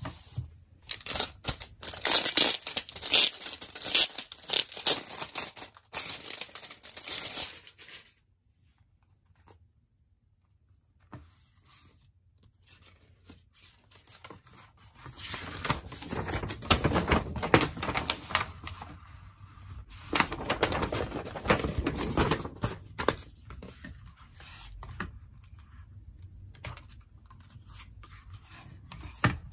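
Plastic shrink wrap crinkling and tearing as it is peeled off a CD album, loud and crackly for several seconds. After a few seconds of near silence, the album's cardboard case and paper inserts rustle as it is opened, then quieter handling and page-turning.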